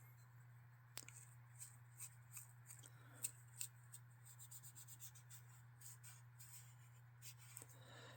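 Near silence: faint, scattered scratches and small clicks from a knife part being scraped and handled, over a steady low hum.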